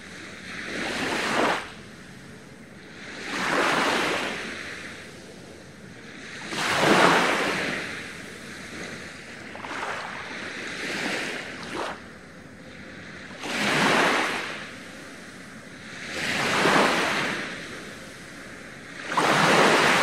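Small waves breaking and washing up a sandy beach: a rush of surf about every three seconds, with a soft hiss between.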